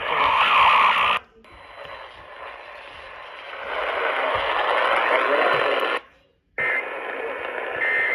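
Static hiss from a weather radio receiver, loud and cut off above the voice range. It drops out briefly about a second in and again for about half a second near six seconds in.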